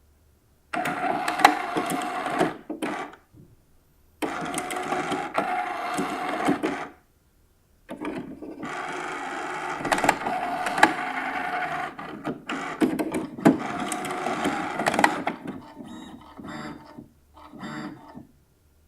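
HP PSC 2105 all-in-one printer's motors and carriage running through a power cycle: three bursts of whirring with sharp clicks, separated by short silences, the third the longest at about seven seconds. Near the end come a few fainter, shorter whirs.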